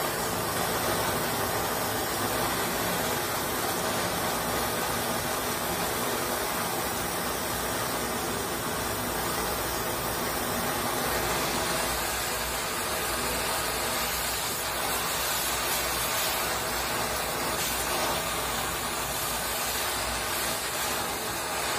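Handheld butane canister gas torch firing steadily into a laptop motherboard: a continuous, even hiss of the flame.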